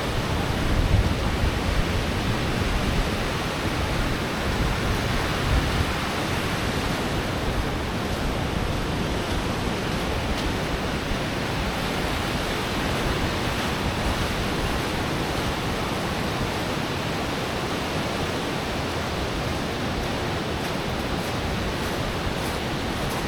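Ocean surf washing steadily onto a sandy beach, with a few louder swells of the waves in the first several seconds.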